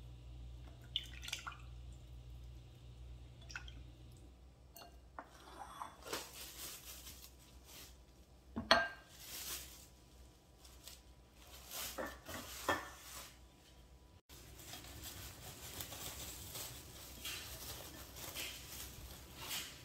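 Plastic cling wrap crinkling and rustling in the hands, with light clinks and knocks of a glass pie dish on a stone counter; a sharp knock a little before halfway is the loudest sound.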